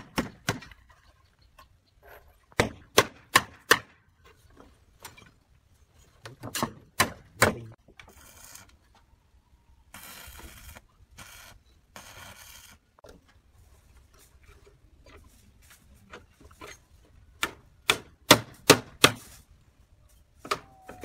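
Hammer blows on a construction site, coming in quick runs of three to five sharp strikes, with short scraping sounds in between.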